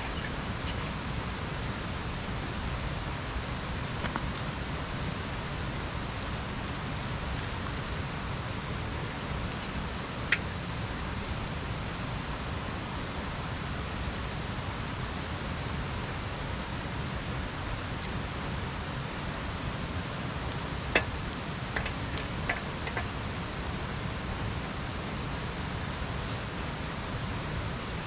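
Small kindling fire of bark and twigs catching, giving a few sharp snaps and cracks, one about a third of the way in and a short cluster about three quarters through, over a steady rushing background noise.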